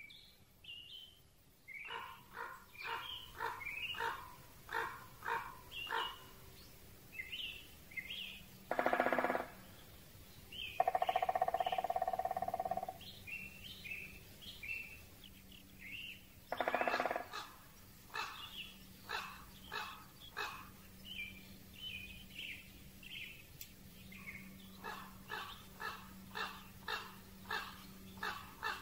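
Spring woodland birdsong: a songbird repeats short, falling call notes in quick series of about two a second. Three louder, longer bursts break in about nine, eleven and seventeen seconds in; the middle one lasts about two seconds. A faint hiss runs underneath.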